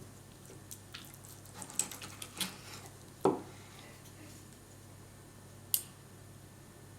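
Faint clicks and taps of cutlery against a plate as food is taken up to taste, the loudest tap about three seconds in, over a low steady hum.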